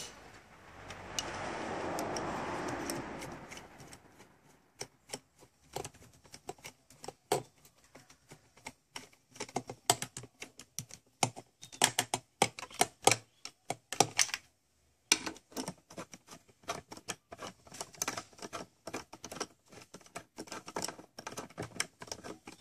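A few seconds of rushing noise, then a socket ratchet clicking in quick, irregular runs with short pauses as the intake manifold bolts are tightened down.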